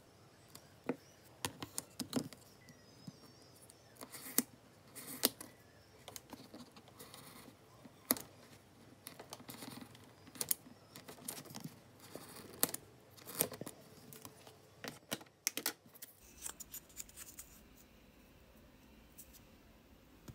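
Snap-off craft knife blade cutting across the grain of a thin wooden strip, drawn along a ruler: irregular sharp cracks and scrapes as the blade works through stiff fibres, since cutting against the grain is a bit hard. The cutting sounds thin out after about 16 seconds.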